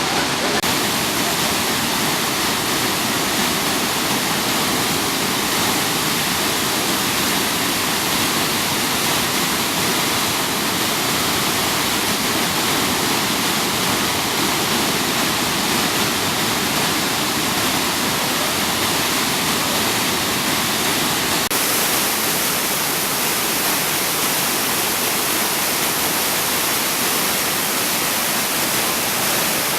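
Waterfall rushing: a loud, steady roar of falling water. The hiss turns slightly brighter about two-thirds of the way in.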